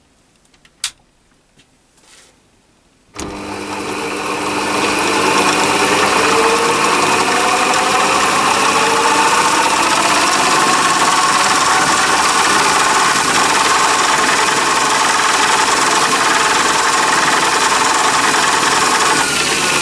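Chinese mini lathe starting up about three seconds in, after a click: its motor and spindle drive run up and then run steadily, a faint whine in the sound rising slowly in pitch as the spindle speed is turned up to about 1200 rpm.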